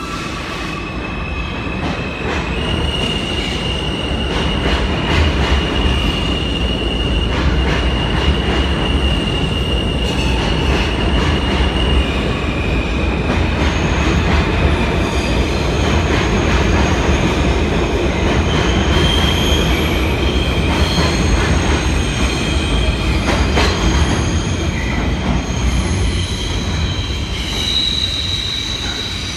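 New York City Subway J train of R160A cars departing and running past, with a low rumble, clacking wheels and high steel-wheel squeal that shifts in pitch. The sound builds over the first few seconds and fades near the end as the train recedes into the tunnel.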